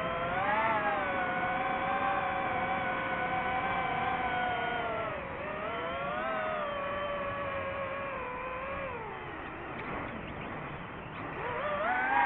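DJI FPV drone's motors and propellers whining in flight, the pitch rising and falling with the throttle. It sinks low about nine seconds in, then climbs sharply near the end.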